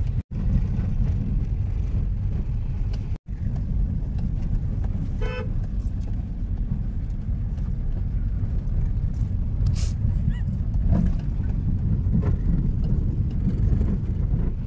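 Steady low rumble of road traffic, with a short car horn toot about five seconds in and a few scattered clicks.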